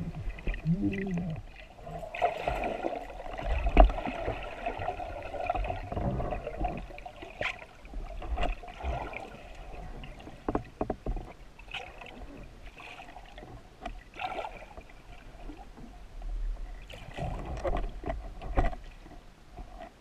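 Muffled underwater sound through an action camera's waterproof housing: bubbling and water movement, with a steady hum and scattered sharp clicks and knocks of gear against the housing.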